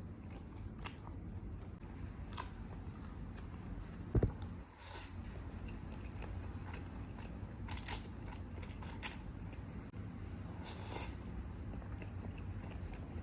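Close-up eating sounds of someone chewing noodles: scattered short wet clicks and smacks of the mouth over a steady low hum, with one louder knock about four seconds in.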